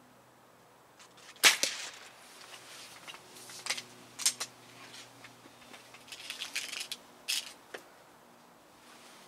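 One shot from a Benjamin Prowler break-barrel air rifle, a single sharp crack about one and a half seconds in, then a string of smaller clicks and clacks over the next several seconds as the rifle is broken open, cocked and reloaded.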